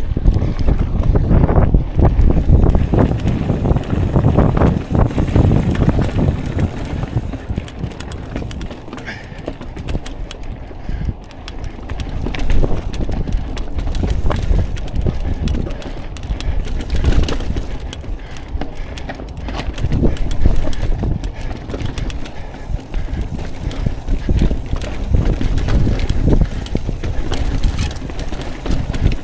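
Mountain bike riding over a rocky trail: steady tyre rumble with frequent knocks and rattles as the wheels hit rocks, getting louder and quieter in waves.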